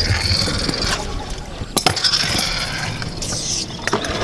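Stunt scooter wheels rolling over concrete ramps, a steady gritty rumble, with a sharp clack at the start and another about two seconds in.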